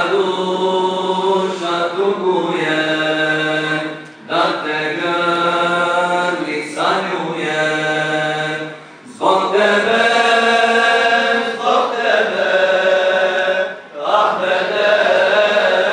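Men's voices chanting a Muslim devotional hymn, an ilahija, in long held phrases, with short breaths about every four to five seconds.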